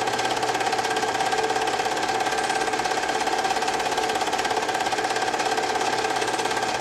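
Film projector running, a steady whirring clatter with a fast, even flutter and a constant whine, with no change in pace.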